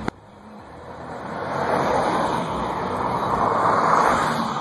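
A sharp click right at the start, then a vehicle's rushing road noise that builds for about three seconds and eases off near the end.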